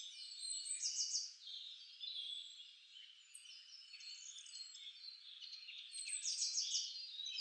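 A chorus of songbirds chirping and singing over one another: quick buzzy trills, short falling whistles and scattered chirps. It thins out in the middle and grows busier again near the end.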